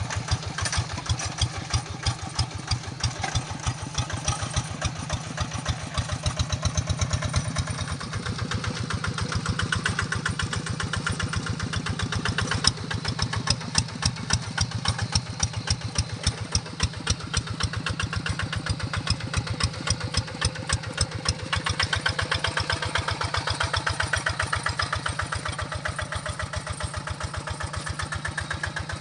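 Large paddy-field tractor's diesel engine running steadily while ploughing, a fast even chugging beat that grows a little louder and eases off at times, with one sharp knock about halfway through.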